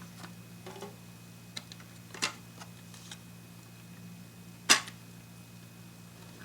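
Light clicks and taps of hard parts being handled while a vintage transistor radio is taken apart, with two sharper clacks, about two seconds in and near five seconds in. A steady low hum runs underneath.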